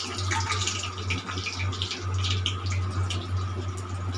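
Cumin seeds and a dried red chilli sizzling and crackling in hot oil in a metal kadai, with many small pops: the whole spices are being tempered. A steady low hum runs underneath.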